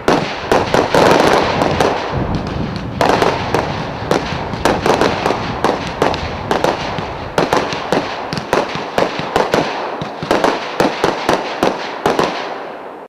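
Fantazia Z Wars 100-shot fireworks cake firing: a fast, continuous run of sharp shots and mid-air bursts, several a second.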